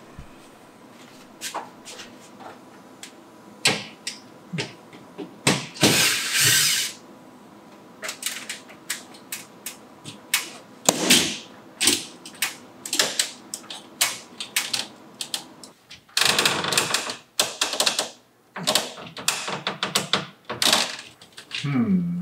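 Irregular clicks, knocks and rattles of metal track-lighting parts being handled and worked loose from the ceiling. There are longer noisy stretches of about a second, about six seconds in and again around sixteen seconds.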